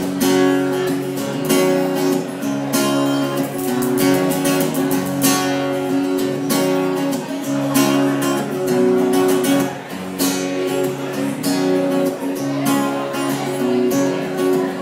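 Acoustic guitar strumming chords in a steady rhythm, played live as an instrumental intro before the vocals come in.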